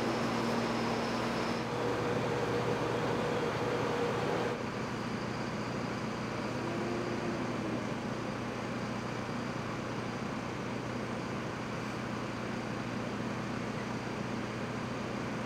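Steady engine drone with a constant low hum, typical of fire trucks and their pumps running at a fire scene. It drops a little in level about four and a half seconds in.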